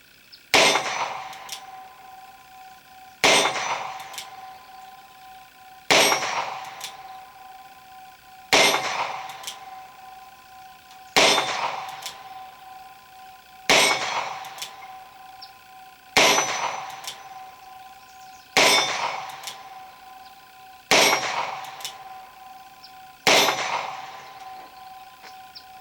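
Ten slow, evenly paced shots from a Cimarron Model P Jr .22 LR single-action revolver, one every two and a half seconds, each followed by a ringing clang from a struck steel target that dies away before the next shot. The ten shots empty its 10-shot cylinder.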